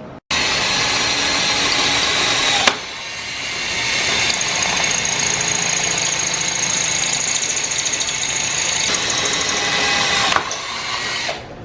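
Electric drill running as holes are drilled through the bike's metal frame. A short run stops sharply about two and a half seconds in, then the drill winds back up into a longer, steady run with a high whine that eases off near the end.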